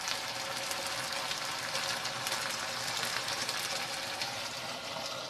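Leftover tomato-sauce stew in a nonstick pan, bubbling and sizzling steadily over a low gas flame with a dense fine crackle. This is the sound that shows the dish is heated through.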